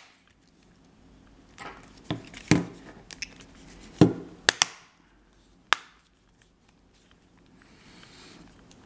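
Sharp clicks and knocks of a Palm M515 handheld's metal back casing being snapped into place and handled, a string of separate strikes with the loudest about two and a half and four seconds in.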